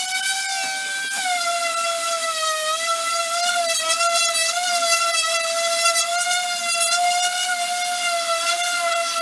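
Electric random orbital sander running on a pallet board, giving a steady high whine whose pitch wavers slightly as it works.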